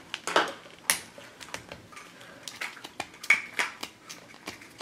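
Clear plastic wrap on an LOL Surprise ball crinkling and crackling in sharp, irregular clicks as a fingernail picks at it to peel it off.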